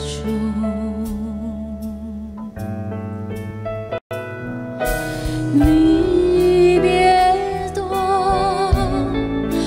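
A woman sings a slow Mandarin pop ballad over band backing, holding notes with vibrato. The sound drops out for an instant about four seconds in, where the medley cuts to the next song.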